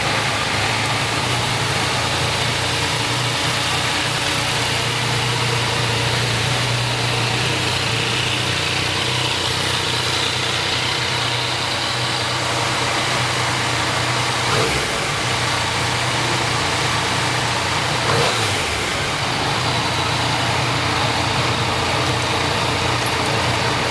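Yamaha MT-09 three-cylinder engine idling steadily through its stock exhaust, with two brief lifts in level about fifteen and eighteen seconds in.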